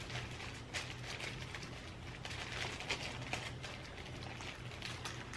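Faint irregular clicks and rustles of hands stuffing seasoned rice into fried tofu (inari) pouches, over a steady hiss and a low hum.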